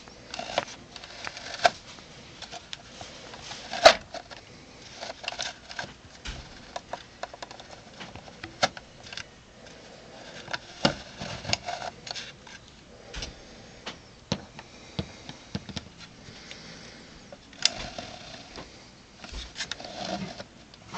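Irregular clicks, taps and rustling from a small homemade model tank being handled: its printed plastic turret turned by hand and the model with its aluminium chassis picked up and moved about. One sharp click stands out about four seconds in.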